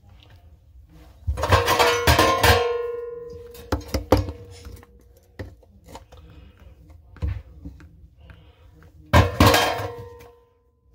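Knocks and clanks from work on bathroom sink plumbing, with two loud strikes, about a second in and near the end, that each ring on with a clear tone and fade over about a second. Smaller taps and clicks fall between them.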